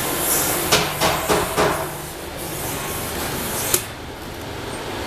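A run of sharp knocks, four in quick succession about a second in and a single one near the end, over a steady noisy background.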